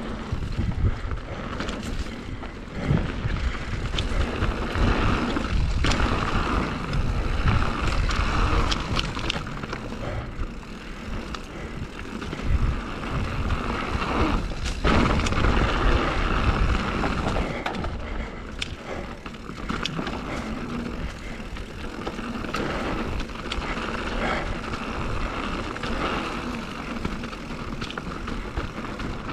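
Mountain bike riding down a dirt trail: tyres rolling over dirt and roots, with the bike rattling and knocking over bumps and wind rumbling on the microphone.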